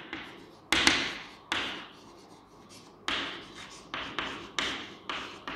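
Chalk writing on a blackboard: about eight sharp taps as the chalk meets the board, each trailing into a short scratchy stroke, with a brief pause about two seconds in.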